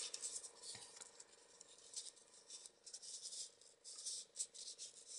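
Faint rustling and light clicking of small folded paper origami modules being picked from a pile and pushed into a 3D origami figure.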